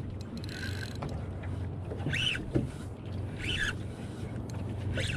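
Boat engine running steadily, with a short high squeak that rises and falls, repeating about every second and a half.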